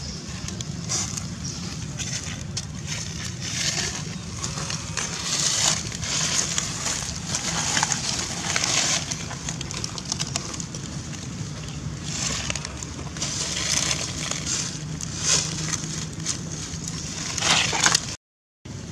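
Dry leaf litter crunching and rustling in irregular bursts, over a steady low background rumble.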